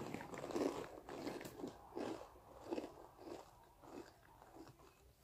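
Close-up chewing and crunching of Takis rolled tortilla chips, a run of crisp crunches that grow fainter toward the end.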